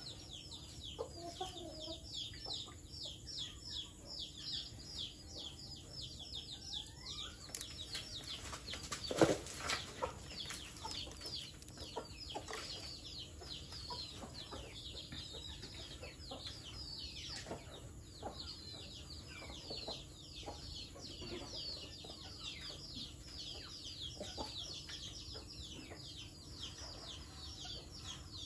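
A chicken flock, with many quick, high, falling chirps and peeps running on and clucking underneath. One loud knock comes about nine seconds in.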